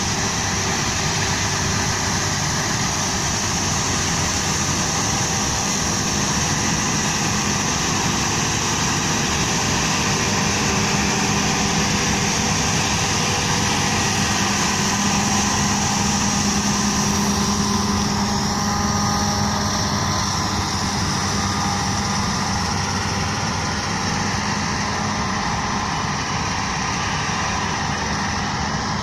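Claas Lexion 760 combine harvester at work cutting and threshing grain: its engine and threshing machinery make a steady, unchanging drone with a strong high-pitched hiss.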